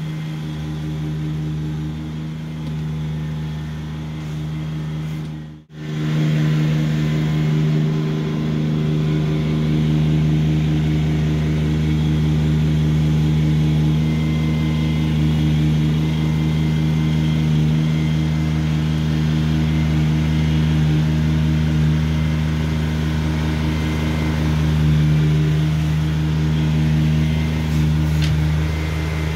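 Kubota BX2660 sub-compact tractor's three-cylinder diesel engine running steadily under working load. There is a brief break about six seconds in, after which the engine is louder.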